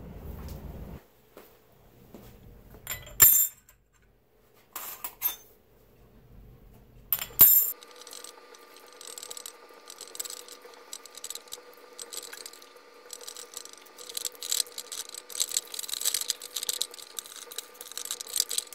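Metal parts and hand tools clinking and knocking on a blower's aluminium bearing plate and rotor shafts as the rotors are drawn up tight against the bearings: a few separate sharp knocks, then from about eight seconds in a long run of quick small clicks over a faint steady hum.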